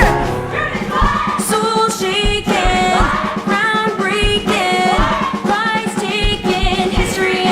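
A musical-theatre song: a group of voices singing over a backing track with a steady beat.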